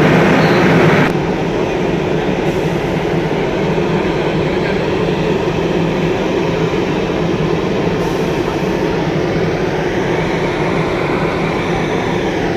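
Train running on the rails, a steady loud noise that drops a little in level about a second in.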